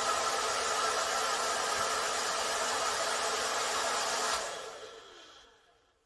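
Handheld hair dryer blowing steadily, a loud rush of air over a steady motor hum. It is switched off about four seconds in, and the sound dies away over the next second and a half as the motor winds down.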